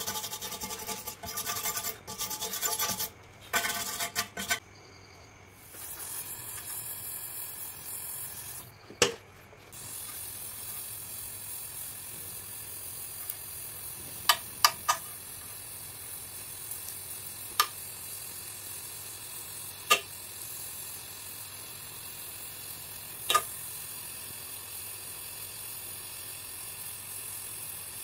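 An LPG gas torch hisses steadily while heating an aluminium casting for welding, with a few sharp pops and crackles at the flame. The first few seconds hold rapid, irregular metallic scraping.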